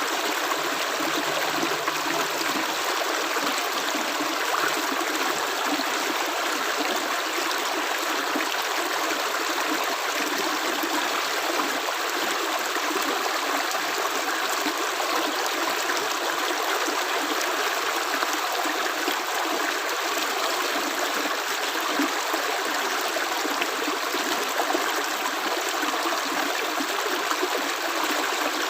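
Running water: a steady, even flow like a small stream, with no separate drops standing out.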